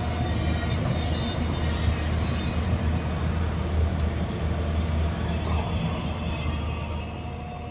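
Hyundai crawler excavators' diesel engines running as they dig, a steady deep drone with a low hum, fading away near the end.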